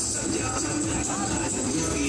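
Festival music with jingling, shaking percussion playing steadily.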